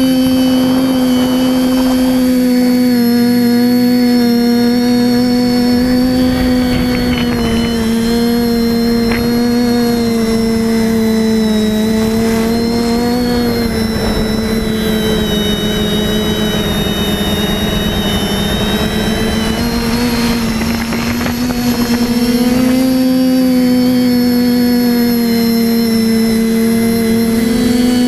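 The TBS Discovery Pro quadcopter's four TBS 1000KV brushless motors and propellers whine steadily in flight, heard from the onboard camera. The pitch sags a little through the middle and rises again near the end, and a rushing noise of wind or prop wash swells over the middle stretch.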